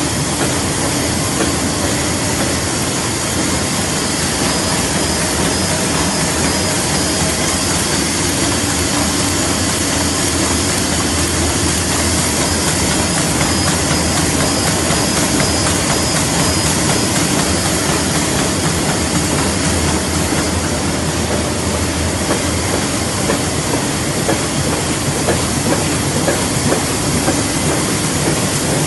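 A 1988 Komori Lithrone L540 sheetfed offset printing press running: a loud, steady mechanical running noise that holds the same level throughout.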